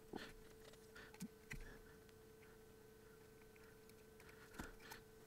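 Near silence: a few faint light clicks and taps from a soldering iron and small parts being handled on an antenna kit's circuit board, over a faint steady hum.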